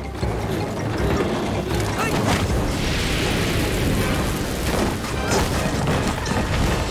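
Sound effects of a large wooden log tumbling down: wood creaking and knocking with several heavy thuds over a low rumble.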